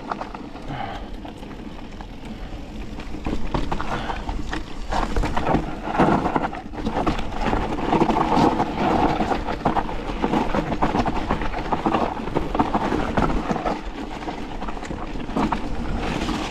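Forme electric mountain bike running down a dirt trail: knobby Nobby Nic tyres rolling over the ground, with frequent knocks and rattles from the bike over rough ground and low wind rumble on the action camera. It gets louder about three and a half seconds in.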